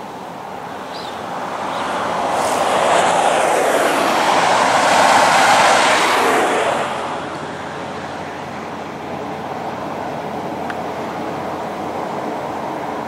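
A road vehicle passing on the highway: tyre and engine noise swells, peaks midway and falls away fairly quickly, leaving a steady, lower traffic rumble.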